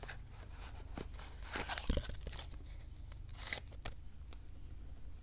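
Tarot deck boxes and cards being handled: scattered rustles, scrapes and small clicks of cardboard and card stock, with a heavier knock about two seconds in.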